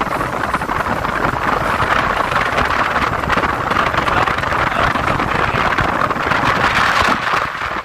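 Motorcycle riding noise: wind rushing over the microphone mixed with the bike's engine running steadily while under way.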